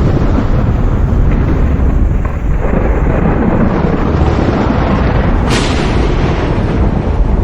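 Thunder rumbling loudly and continuously, with a sharp crack of a nearer strike about five and a half seconds in.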